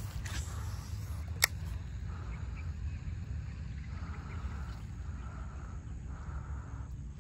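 Outdoor ambience: a low steady rumble, with a single sharp click about a second and a half in and soft rustling patches in the second half.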